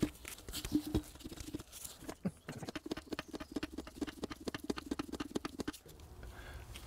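Hand grease gun forcing grease through the grease nipple inside an Anyang power hammer: a fast run of small clicks and crackles. They come thickest from about two seconds in and stop shortly before the end.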